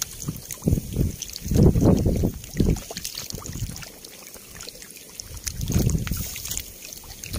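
Catfish thrashing in shallow muddy water, sending up irregular bursts of splashing with a quieter stretch midway.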